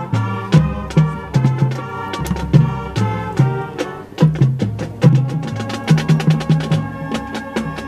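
Marching band playing: sustained brass and wind chords over drumline and mallet percussion, with frequent sharp drum hits.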